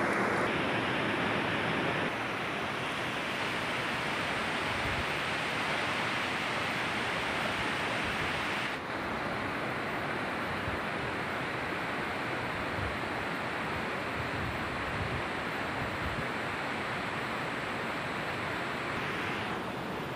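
Steady rush of flowing river water, an even noise with no distinct events, stepping slightly in level a few times.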